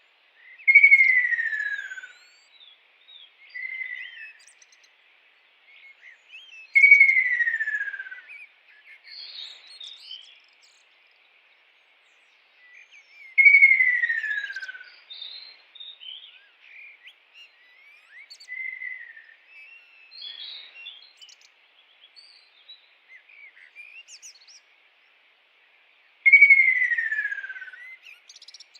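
A bird calling: a loud, clear whistle sliding down in pitch, about a second and a half long, given four times at gaps of six to thirteen seconds, with softer short whistles and chirps between them.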